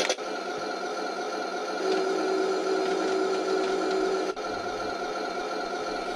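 Heng Long Challenger 2 RC tank's built-in sound unit playing its simulated engine running sound, a steady mechanical drone through the model's small speaker. A steadier higher tone joins it for about two seconds in the middle.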